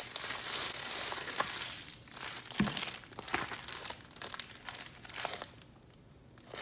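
Plastic packing wrap crinkling and rustling as it is handled and pulled off a camera lens, with scattered sharp crackles. It goes quiet for about a second near the end.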